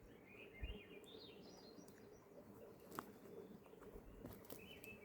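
Faint songbird chirping: runs of short high chirps stepping up and down in pitch in the first two seconds, with a few more near the end. A soft low thump about half a second in and a single sharp click about three seconds in are the loudest moments.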